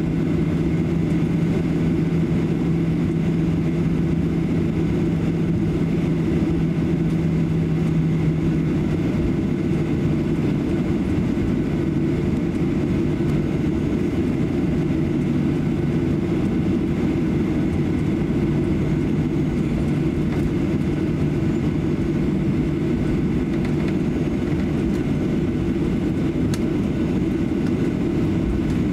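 Cabin noise of a Boeing 737-800 taxiing, its CFM56 jet engines at idle: a steady low drone with a steady hum that drops a little in pitch about ten seconds in.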